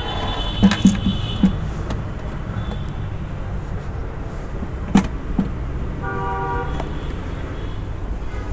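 Steady road-traffic rumble with a vehicle horn tooting briefly about six seconds in. A few sharp knocks and clicks come about a second in and again around five seconds, as a pannier is pressed onto its lower mounts.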